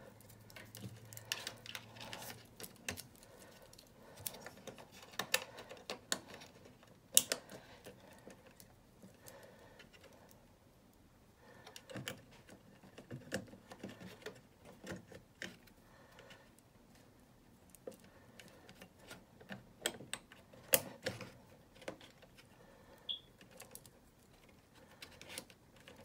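Plastic wire-harness connectors being handled and pushed into a refrigerator control board: irregular light clicks and rattling of the connectors and wires, with one sharper click about seven seconds in.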